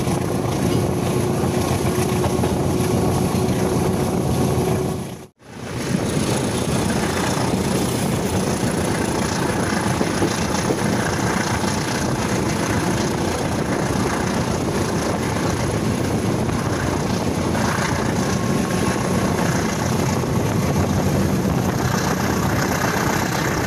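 Long-distance passenger train running at speed, heard from the vestibule by the door: a steady rush and rumble of wheels on rails and air. The sound breaks off for an instant about five seconds in.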